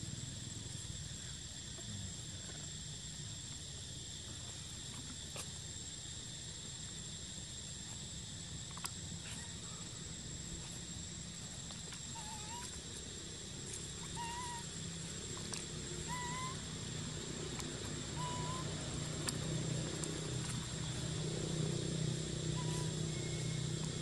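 Outdoor woodland ambience: a steady high insect buzz, with a bird giving short, slightly rising whistled notes every second or two from about halfway through, over a low hum that swells near the end.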